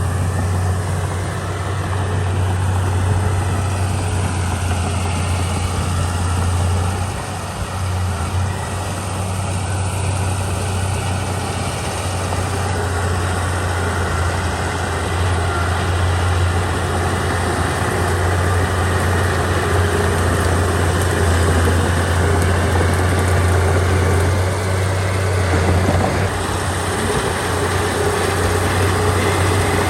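Komatsu D31P bulldozer's diesel engine running steadily with a strong low hum, dipping briefly about seven seconds in.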